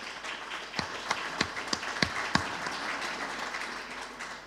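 Audience applauding, fading away toward the end, with a few sharp knocks in the first two seconds or so.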